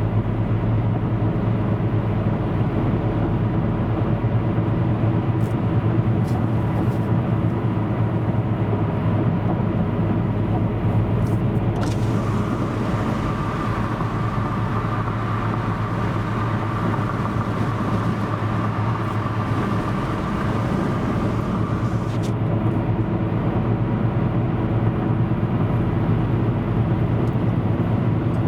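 A motor vehicle driving: a steady engine and road drone with a strong low hum. A higher whine joins about twelve seconds in and drops out about ten seconds later, and there are a few faint clicks.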